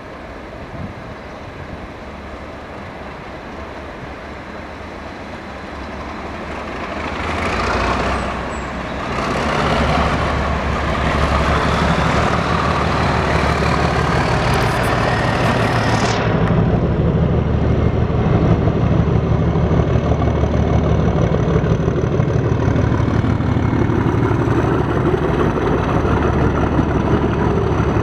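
A diesel locomotive hauling a rake of Class 456 electric units approaches and passes, its engine growing louder and then running steadily. The hauled units follow, their wheels rolling on the rails.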